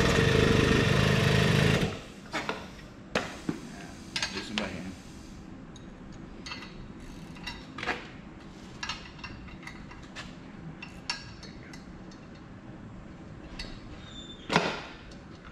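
A machine running loudly, cutting off suddenly about two seconds in. Then scattered light clicks and knocks from tools and metal parts being handled, with a louder knock near the end.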